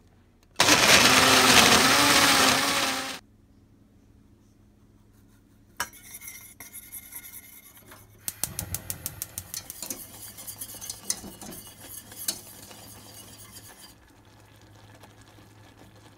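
A personal blender running for about two and a half seconds, puréeing kiwi and water. Then a wire whisk stirring the kiwi mixture in a stainless steel saucepan, clinking and scraping against the pan in quick ticks that stop about two seconds before the end.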